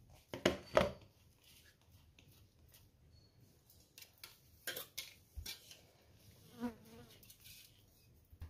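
Spoon scraping and tapping against a steel mixer-grinder jar while ground sesame is emptied into a plastic bowl: a few sharp clicks and knocks in the first second and a cluster around the middle, with quiet between.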